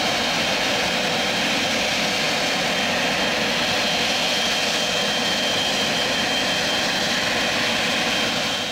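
Air France Boeing 777-300ER's GE90 jet engines running as the airliner rolls out on a wet runway: a steady rush of noise with a thin high whine, fading out near the end.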